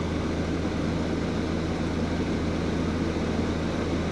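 Air conditioner running, its fan blowing cold air out of the vent with a steady rush and a low, even hum.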